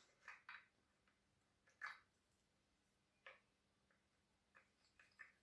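Near silence broken by a few faint clicks and light taps, about one to two seconds apart with a small cluster near the end: metal parts being handled and fitted on the clutch side of a Husqvarna chainsaw during reassembly.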